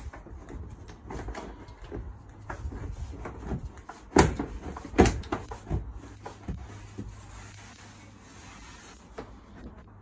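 Parts of a Keter Scala resin shed being knocked and rattled into place: scattered knocks and clicks, with two loud knocks about four and five seconds in.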